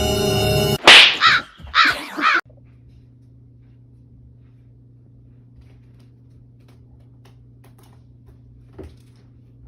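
A crow cawing: three loud, harsh caws in quick succession about a second in. Then a quiet, steady low hum with faint ticks and a small knock near the end.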